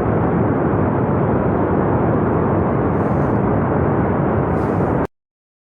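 Loud, steady roar of rushing floodwater, cutting off suddenly about five seconds in.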